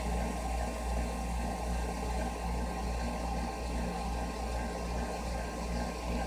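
Home furnace running: a steady low hum and rumble that pulses slightly, with a constant faint whine above it, the sound of its unexplained fault.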